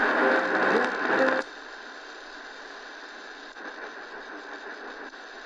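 Prunus J-15 portable radio's speaker playing a medium-wave AM station, which cuts off suddenly about a second and a half in as the dial is tuned off it. After that there is only steady static hiss between stations.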